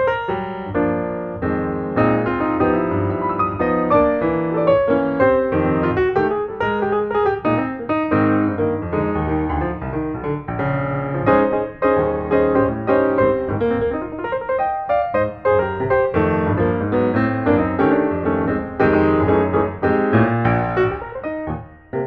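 Background piano music: a light, busy melody of quick notes over a bass line.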